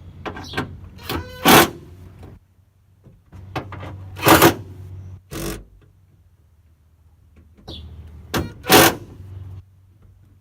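Metal hand-tool work on the bolts holding a starter solenoid: short bursts of rapid clicking and clacking, three of them loud, with quieter gaps between.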